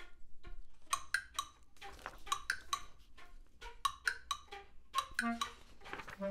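Small hand percussion struck in light, irregular taps, several a second, each with a short ringing note; a few short low notes join in near the end.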